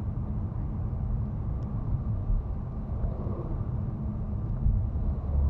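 Steady low rumble of a car driving along, heard from inside the cabin: engine and tyre noise on the road.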